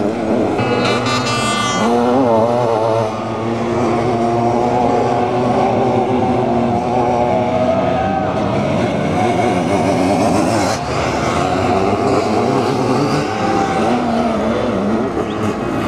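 Several sidecar motocross outfits' engines racing on the track, overlapping and revving up and down as they accelerate and shift. One engine revs hard close by, its pitch wavering quickly, between about half a second and two seconds in.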